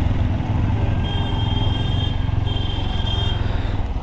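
Motorcycle engine running at low speed as the bike slows and pulls over, a steady low hum. A thin, high, steady whine sounds over it from about a second in until past three seconds.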